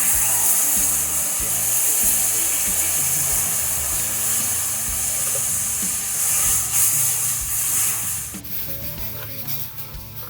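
Cold milk poured into hot ghee and roasted gram flour in a kadhai, sizzling loudly with a strong steady hiss that cuts off abruptly about eight seconds in.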